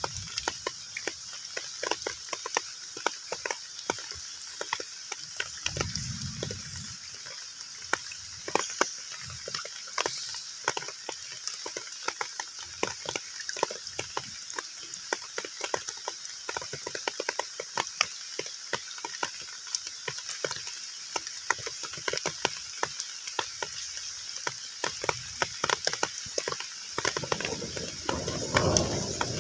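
Heavy rain falling on a pond's open water: a dense, irregular patter of individual drops over a steady hiss. Near the end the rain grows louder and fuller.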